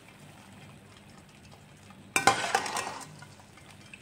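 Zucchini slices sizzling faintly in olive oil. About two seconds in, a metal slotted skimmer scrapes and clinks against the enamelled pan for about a second as the fried slices are lifted out.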